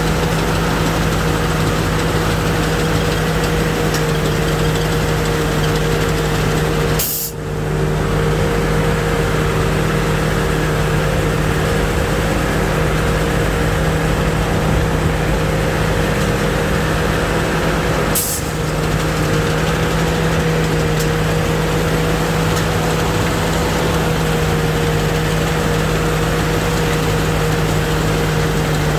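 Rice combine harvester running steadily, its engine and threshing machinery giving a constant hum with a steady higher drone over it. The sound drops out briefly twice.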